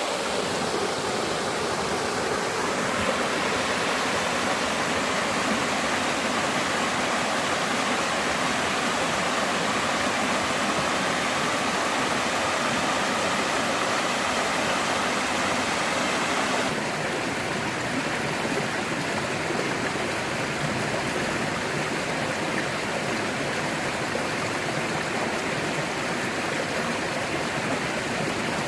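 River water rushing and splashing steadily over rocks, a little quieter from about two-thirds of the way through.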